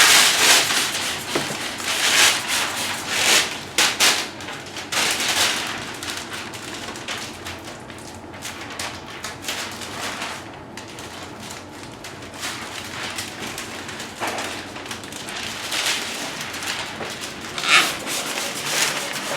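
A large sheet of plastic window-tint film rustling and crackling as it is handled and snapped into place against the glass. It comes as a run of irregular bursts, densest in the first few seconds, then fewer and quieter, with a couple more near the end.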